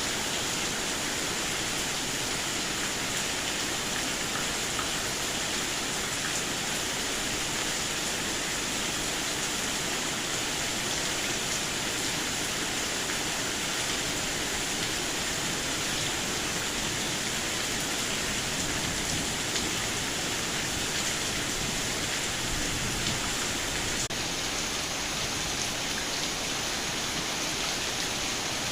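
Steady rain falling, a constant even hiss with scattered faint drop ticks.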